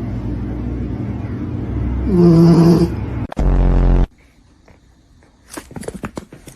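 A dog making low, snore-like grumbling noises, with one stronger drawn-out groan about two seconds in. A few sharp clicks follow near the end.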